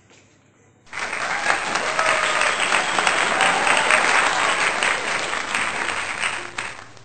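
Crowd applause, starting suddenly about a second in and fading away near the end.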